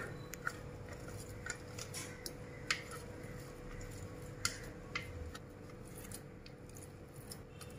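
Faint scraping and a few light, irregular clicks of a plastic spatula against a plastic blender jar as ground chicken paste is scraped out into a glass bowl, over a faint steady hum.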